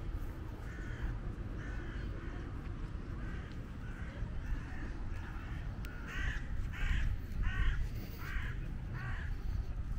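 A crow cawing repeatedly, a short harsh call about every second, the calls louder over the last four seconds. A steady low rumble runs underneath.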